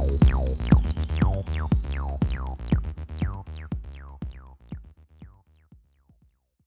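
Background music with a steady beat, fading out to silence over the last few seconds.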